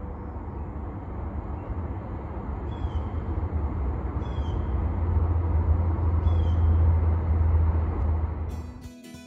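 Steady rumble of highway traffic on Interstate 75, swelling louder about five seconds in. A bird gives a short downslurred call three times. Guitar music comes in near the end.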